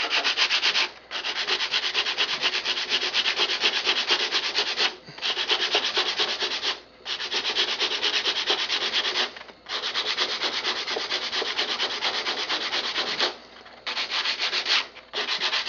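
Sandpaper rubbed by hand along the edge of a cedar strip in rapid back-and-forth strokes, in several runs with brief pauses between, taking material off a tight spot so the strip fits against its neighbour.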